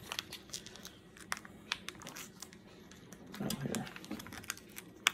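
Single-serve plastic dressing packet crinkling and crackling as fingers handle it, in sharp irregular crackles.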